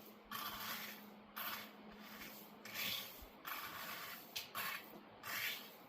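Hand tool scraping and dragging through crushed-stone track ballast, about six rough scrapes roughly a second apart, as the ballast is spread and levelled on the roadbed.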